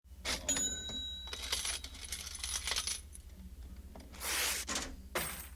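Coins clinking and jingling several times, with a brief metallic ring about half a second in.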